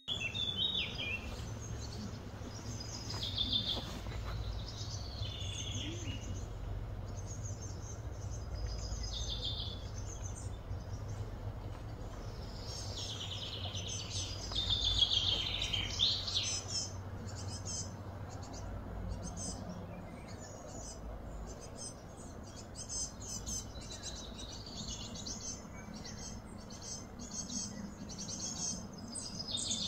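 Outdoor ambience of many birds chirping and trilling, over a steady low rumble.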